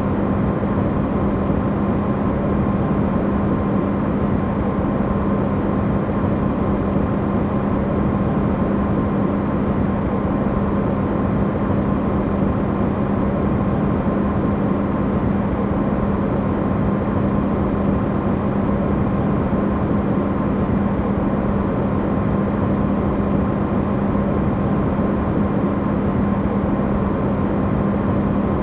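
Amplified recording of an Electrolux refrigerator running: a steady, unchanging rushing noise with a constant low hum and a fainter, higher tone.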